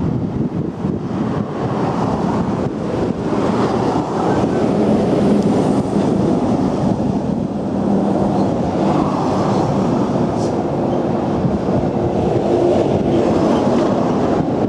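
Road traffic on a bridge: a steady wash of tyre and engine noise with a low engine hum, as a container lorry passes close by.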